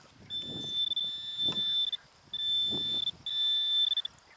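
Handheld metal-detecting pinpointer giving a steady high tone, the sign that it is over metal in the dug hole. The tone breaks off briefly about two seconds in and again just after three, with soft scraping of soil under it.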